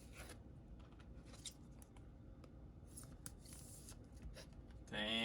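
Faint rustling and light clicks of trading cards being handled, with scattered small ticks.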